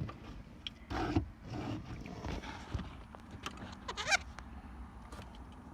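Quiet eating noises: a few soft knocks and mouth sounds, and a brief pitched 'mm'-like vocal sound about four seconds in.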